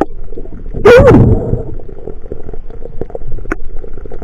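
Muffled underwater noise with scattered small clicks. About a second in comes a short pitched whoop that rises and then falls: a diver's voice, muffled by the water.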